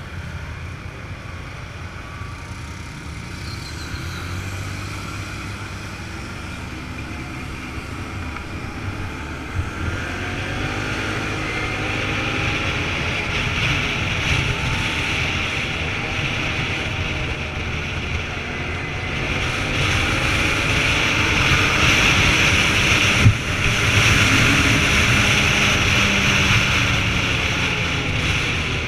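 Vehicle engine running under way, its pitch rising and falling with speed, over road and wind noise that builds louder in the second half. A single sharp knock about 23 seconds in.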